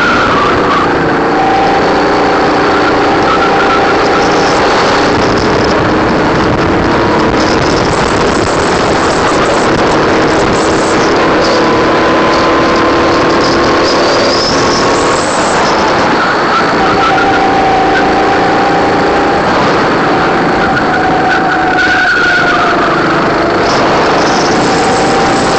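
Racing kart's engine running hard, heard through an onboard camera mic with heavy wind and vibration noise. The engine note climbs slowly along a straight, drops about 16 seconds in as the kart slows for a corner, then picks up again.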